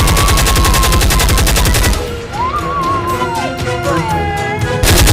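Rapid automatic gunfire, about ten shots a second, that breaks off about two seconds in and starts again near the end, with gliding tones in the gap.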